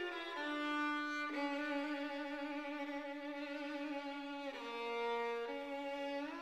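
Background music: a violin playing a slow melody of long held notes.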